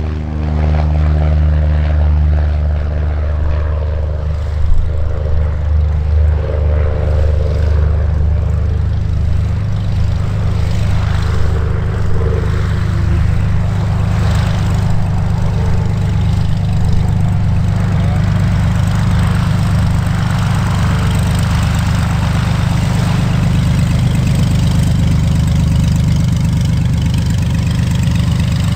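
Light propeller aircraft engine running, a steady low drone. A higher engine note with many overtones fades away over the first few seconds.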